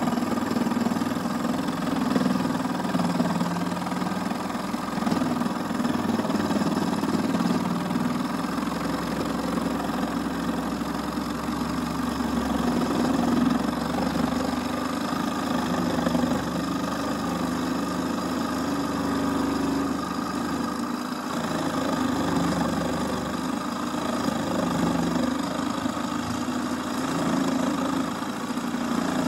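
Proxxon electric scroll saw running at its lowest stroke rate, its blade cutting through a wooden board with a steady, even machine hum.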